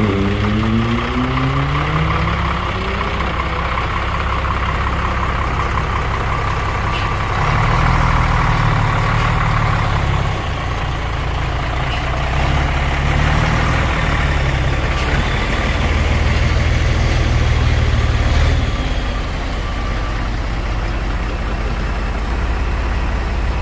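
Scania P82H truck's diesel engine running under way. Its pitch drops and then climbs in the first few seconds, as with a gear change and acceleration. It then pulls steadily, growing louder twice for a few seconds at a time.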